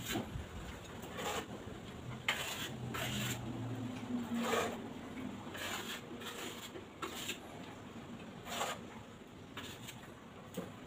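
A small pointed trowel scraping grey tile mortar off a flat trowel and spreading it: a string of about ten short, irregularly spaced scrapes.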